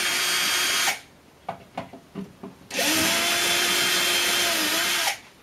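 Electric screwdriver backing screws out of a metal equipment frame in two runs. The first stops about a second in, and the second starts near the three-second mark and lasts about two and a half seconds. Each run winds up and down in pitch, with a few small clicks between them.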